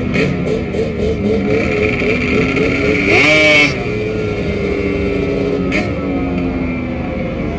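Small racing engine idling with a wavering pitch, then revved sharply once about three seconds in, the pitch sweeping quickly up and falling back to idle.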